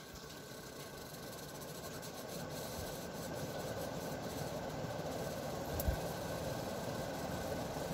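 Vintage Ritz 52-inch ceiling fan speeding up to high speed: the motor hum and the rush of the blades grow steadily louder. A single light knock about six seconds in.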